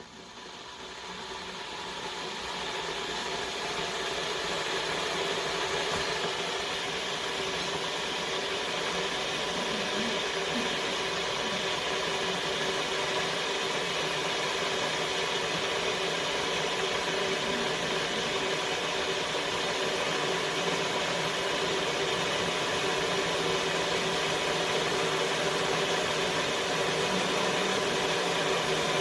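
COMFEE 1.7-litre stainless steel electric kettle heating water toward the boil: a steady rushing hiss that swells over the first few seconds, then holds level.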